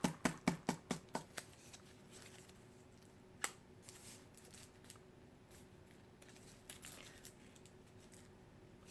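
Food wrappers and takeout packaging handled close up: a quick run of sharp crinkles and snips in the first second and a half, a single sharp click a few seconds later, then faint, sparse rustling.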